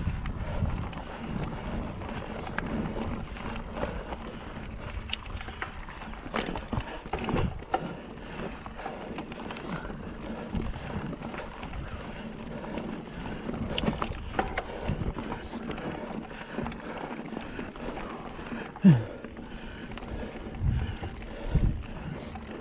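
Mountain bike ridden over a rough trail: a steady rush of wind on the microphone with scattered knocks and rattles. There is one louder knock a few seconds before the end.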